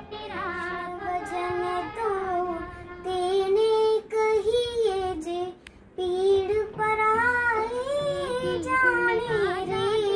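A child singing solo, holding long notes that bend in pitch, with a short pause a little before six seconds in.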